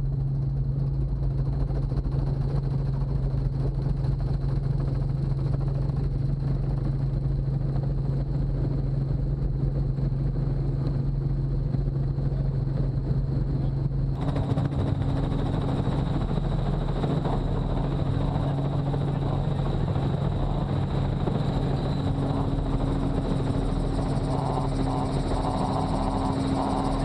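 Helicopter engine and rotor running steadily, heard from inside the cabin with the doors off, with a deep, even hum. About halfway through the sound shifts to a brighter rush with an added higher hum.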